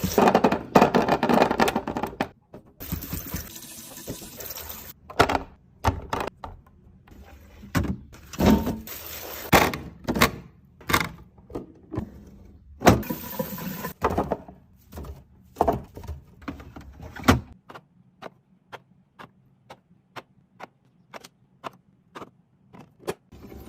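Containers and packaging being handled and set down during fridge restocking: irregular clicks, knocks and rustling, then from about two-thirds of the way in a run of light, evenly spaced clicks over a faint hum.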